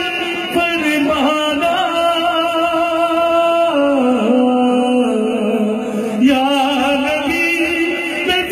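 A solo voice sings a naat, a devotional hymn in praise of the Prophet, in long held, wavering notes. The melody drops lower a little under four seconds in and climbs back about two and a half seconds later.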